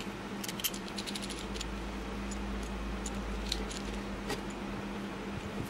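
Light clicks and clinks of small metal parts being handled and fitted together, thick in the first second and a half and scattered after, over a steady faint hum.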